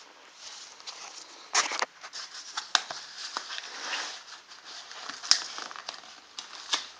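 Cardboard box being opened by hand: a crackling rustle of cardboard and packing material with scattered sharp clicks and a few louder snaps.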